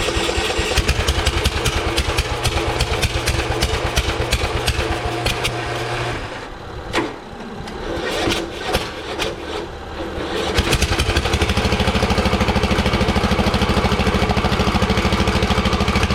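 Kohler Courage 19 single-cylinder engine of a Cub Cadet LT1042 lawn tractor being cranked and started: it turns over for about six seconds, falters for a few seconds, then catches at about ten seconds in and runs steadily.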